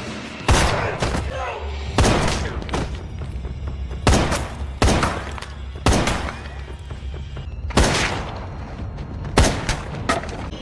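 Gunshots in a film shootout: about eight loud single shots at irregular intervals, each with a short echoing tail, over a low steady rumble of score.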